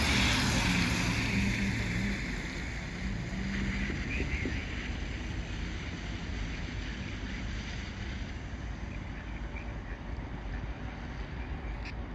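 A low engine drone with wind noise on the microphone, loudest in the first few seconds and then fading to a quieter steady rumble.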